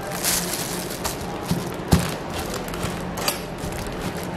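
Wooden pestle pounding ground chili, spices and salt in a wooden mortar: a few dull knocks, the loudest about two seconds in, over a steady low hum.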